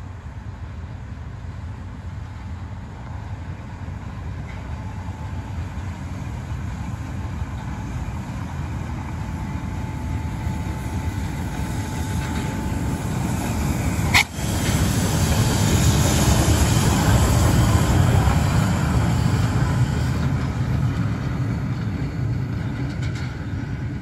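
Steam locomotive DSB Litra Q 350 moving on the tracks while shunting. The rumble grows louder as it comes closer, is loudest a few seconds after a single sharp click a little past halfway, then eases off.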